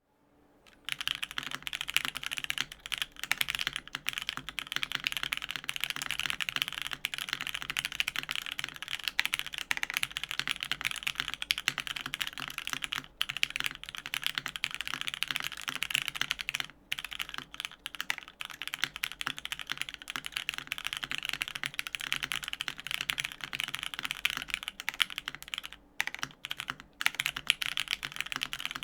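Fast, continuous typing on a custom FMJ80 mechanical keyboard with lubed Cherry Hyperglide MX Black linear switches in an aluminium full plate, under GMK keycaps. It starts about a second in, with a few brief pauses.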